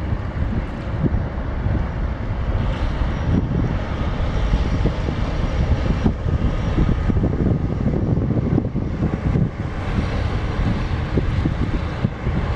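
Wind buffeting the microphone over the steady low running of a passing inland motor cargo ship's engine.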